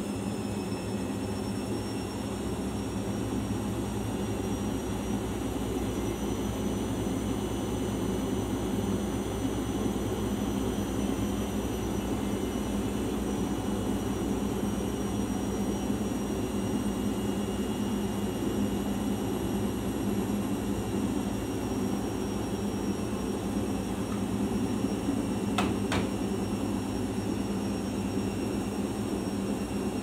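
Arçelik 5083 washing machine running with a steady motor hum and a thin high whine that climbs slightly over the first several seconds, during its cycle with a sudsy load. Two brief clicks come late on.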